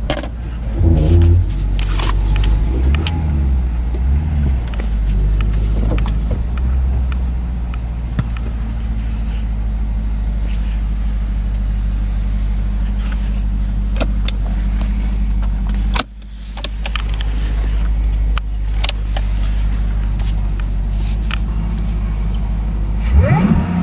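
Supercharged 6.2-litre V8 of a 2011 Cadillac CTS-V running steadily and sounding healthy, with scattered light clicks. Its level drops suddenly about two-thirds of the way through, then comes back.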